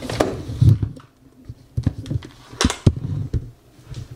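Irregular sharp clicks and dull knocks, with the loudest ones about two-thirds of a second in and again near three seconds in.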